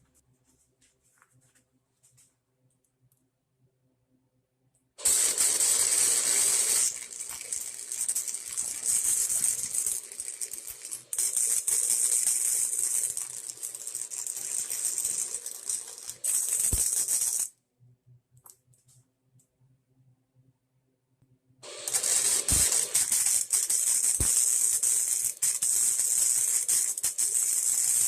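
Welding arc crackling and sizzling steadily as a bead is laid on a broken snowblower wheel. It starts about five seconds in, stops for a few seconds past the middle, then starts again near the end.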